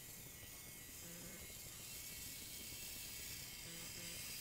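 DFRobot MiniQ 4WD line-follower robot's small electric drive motors running with a faint high buzzing whine as it drives along the line. A low hum comes in briefly twice, about a second in and near the end.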